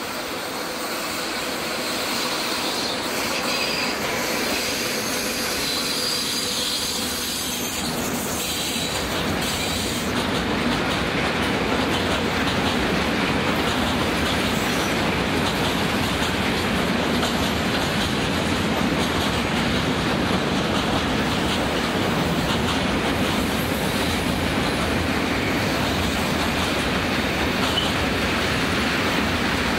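Freight train of rail tank wagons rolling past, a steady rumble of wheels on the rails that grows louder over the first ten seconds and then holds.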